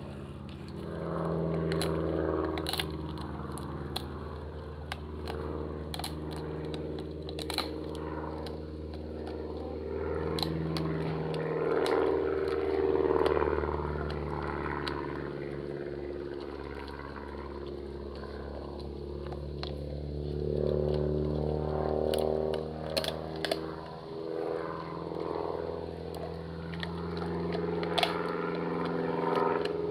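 Dog gnawing and crunching a raw venison rib, with repeated sharp cracks of bone and chewing noises, over a steady low droning hum.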